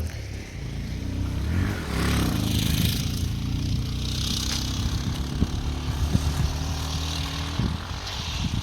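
A motor vehicle's engine running close by, its pitch rising around two seconds in and then holding steady before it dies away near the end.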